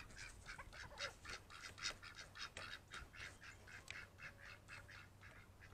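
Penned ducks quacking faintly in a fast, steady run of short calls, about four a second.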